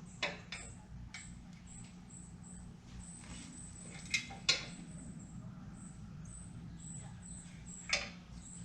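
A few light clicks and knocks from the exhaust muffler parts being handled and lined up, over a steady low hum. Short high chirps repeat throughout.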